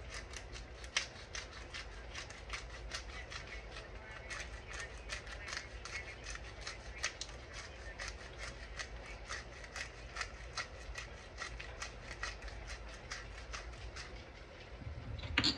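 A shaker of white pepper being shaken over food, a steady run of quick rattling taps about four a second. A louder bump comes near the end.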